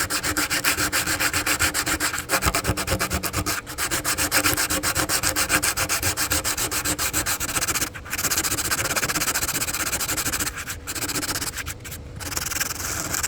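Sandpaper rubbed over a cured Solarez resin repair on a carbon kiteboard to smooth it down, in rapid back-and-forth strokes. It stops briefly a few times.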